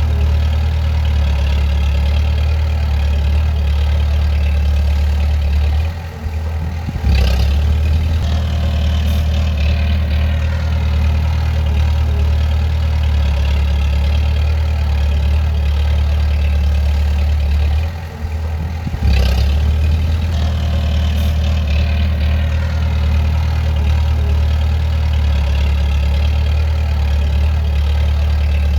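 Bulldozer's diesel engine running steadily with a deep drone. Twice, about six and eighteen seconds in, it dips briefly and then comes back louder with a short clank.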